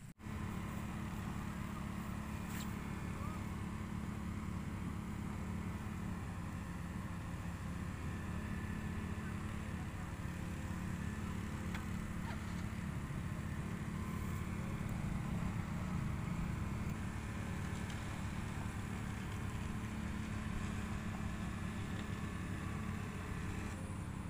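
Heavy machinery engines, an excavator and a truck, running steadily: a continuous low drone.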